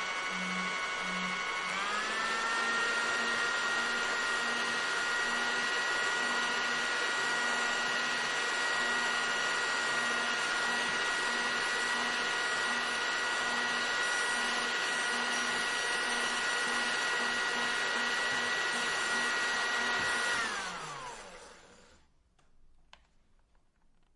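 Electric hair dryer running: rushing air with a steady motor whine. About two seconds in it steps up to a higher speed and holds there. Near the end it is switched off and winds down with a falling whine, leaving quiet with a couple of faint clicks.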